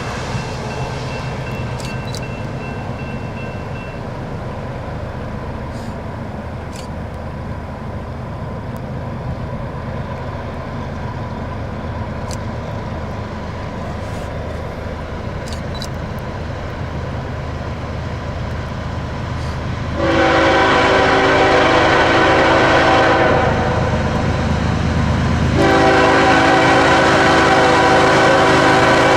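Diesel freight locomotive rumbling steadily, then sounding its multi-chime air horn in two long blasts, the second starting a couple of seconds after the first ends and still going at the end.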